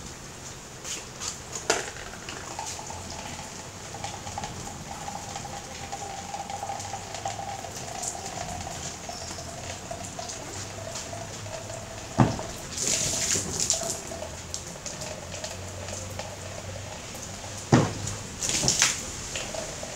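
Rainwater pouring and splashing off the edge of a sagging fabric shade awning, with dripping throughout. Two sharp knocks come past the middle and near the end, each followed by a louder gush of splashing water as the awning is pushed up and its pooled water spills.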